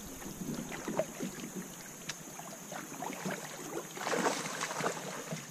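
Kayak being paddled with a double-bladed paddle: the blades dip and splash in the water, with scattered light clicks and a louder splashing stroke about four seconds in.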